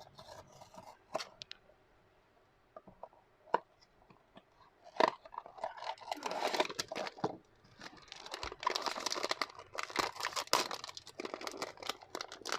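Pop Mart blind box being opened by hand: scattered clicks and taps of the cardboard box at first, then, from about six seconds in, continuous crinkling and tearing of the plastic packaging.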